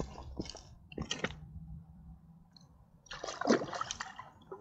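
Smallmouth bass being released back into the river: water splashing in a few short bursts, then a louder bout of splashing about three and a half seconds in.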